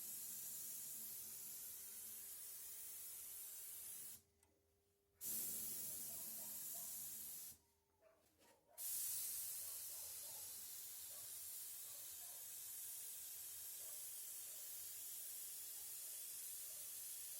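Spray gun hissing steadily while spraying, with the trigger released twice for about a second each before spraying resumes.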